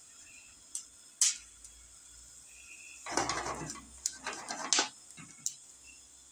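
Small hot peppers charring in a dry pan over a gas flame: a couple of sharp pops about a second in, then about two seconds of crackling and spitting as the skins blister.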